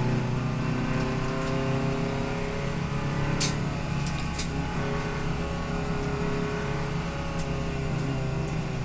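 Touring race car's engine heard from inside the cockpit, running steadily in third gear at a fairly even pitch. A few short, sharp clicks sound about halfway through.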